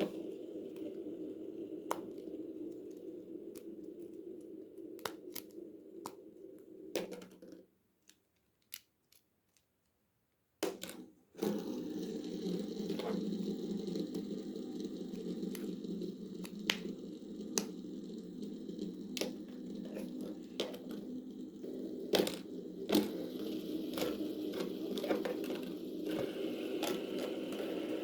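Plastic fidget toys being handled: pop tubes stretched and squeezed, giving scattered sharp clicks and crinkling over a steady low hum. The sound drops out to silence for about three seconds near the middle, then resumes.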